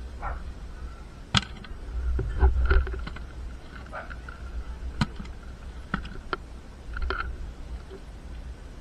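Gloved hands moving freshly caught fish around in a plastic tub: scattered sharp knocks and clicks, with heavier bumping and rumbling handling noise around two to three seconds in and again about seven seconds in.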